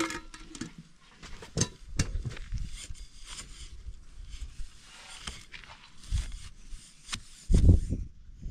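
Wooden weaving sword working the warp of a hand ground loom, giving irregular sharp wooden clacks a second or two apart as the weft is beaten in. A louder low rumble comes near the end.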